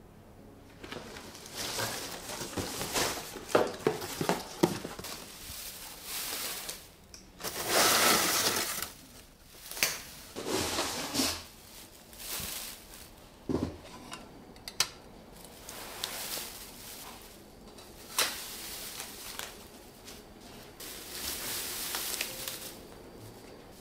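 Artificial Christmas tree being handled and put together: the plastic branches rustle and crinkle in irregular bursts, with a few sharp clicks and knocks from the stem and branch wires.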